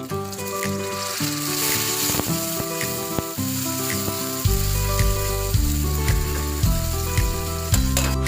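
Food sizzling in hot oil in a frying pan, a steady hiss, over background music that picks up a stronger bass beat about halfway through.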